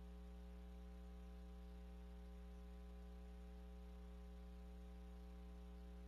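Near silence, with a steady low electrical hum and its overtones.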